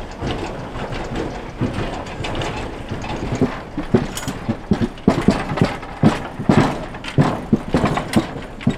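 Cable-hauled steel boat carriage of an inclined-plane boat lift rolling on rails, a steady rumble with irregular clanks and knocks from its wheels and frame. The knocks grow more frequent and louder from about three and a half seconds in as the carriage passes close by.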